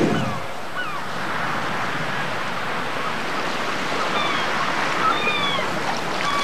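Steady wash of ocean water with short, high dolphin whistles that glide in pitch, a few at first and more from about four seconds in.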